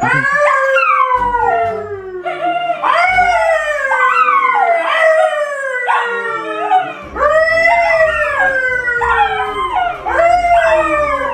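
A dog 'singing': a long string of high, drawn-out howls, each sliding down in pitch, one after another with short breaks between them.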